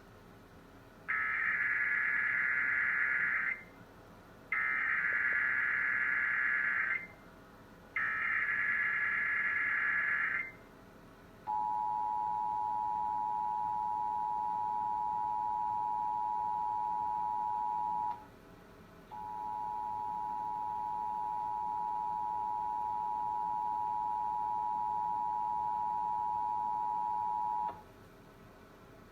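Emergency Alert System Required Monthly Test: three screeching digital SAME header bursts, each about two and a half seconds long, followed by the two-tone attention signal. The attention tone breaks off for about a second partway through and then resumes before cutting off. No voice message follows in this test.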